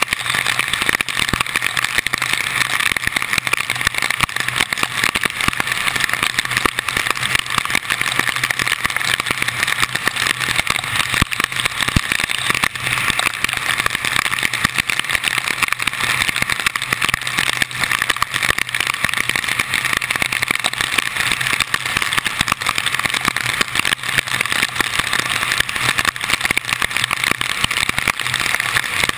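A car driving steadily in heavy tropical-storm rain, heard from a camera mounted on its hood: a constant rush of wind, tyre spray and rain, with a low engine hum underneath and many small rain ticks against the camera.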